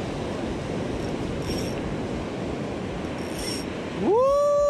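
Surf washing over the sand, with wind on the microphone. Near the end a loud high tone rises, holds for about a second and falls away.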